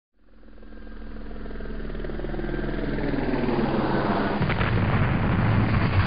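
Cinematic intro rumble: a deep, steady low hum that swells louder and louder, thickening into a heavy rumble from about four and a half seconds in.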